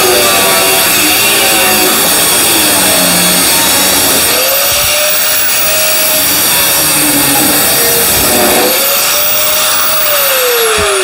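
Angle grinder with a cut-off wheel cutting the excess sheet metal off the edge of a door panel: a loud, steady grinding hiss over the motor's whine. The whine dips and recovers twice as the wheel bites. About a second before the end the whine falls away as the grinder winds down.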